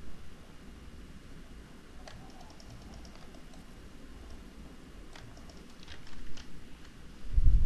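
A few scattered computer keyboard and mouse clicks over a faint low hum, with a dull thump near the end.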